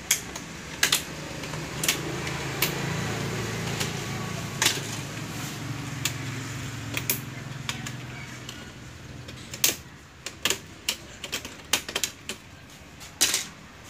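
Sharp clicks and taps from hands working on the metal back chassis and boards of an opened LED TV. A quick series of clicks comes near the end, over a low hum that swells and then fades.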